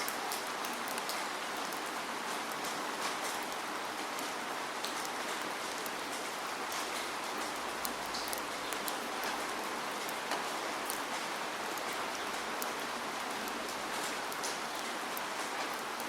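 Rain falling steadily, a constant hiss dotted with many sharp ticks of single drops hitting close by.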